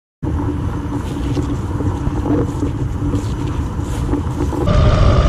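A car running: a steady engine hum with low rumble that steps up louder and higher in pitch about four and a half seconds in.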